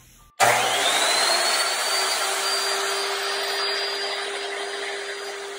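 Electric miter saw starting up, its motor whine rising quickly to a steady pitch as the blade spins up, then running while it cuts wood molding.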